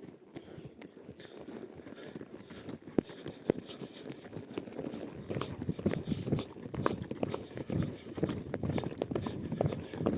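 Hoofbeats of Arabian horses galloping over open ground, a rapid uneven drumming of hooves that grows louder and denser about halfway through.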